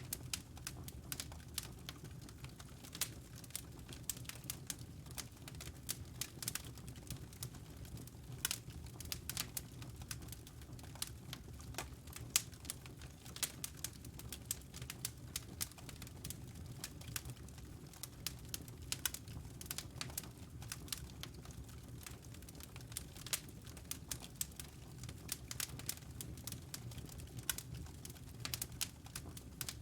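Wood fire burning in a fireplace, with many irregular sharp crackles and pops over a steady low rumble of the flames.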